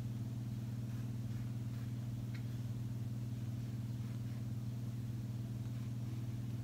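Steady low hum with a fainter higher overtone, unchanging throughout, with one faint tick about two seconds in.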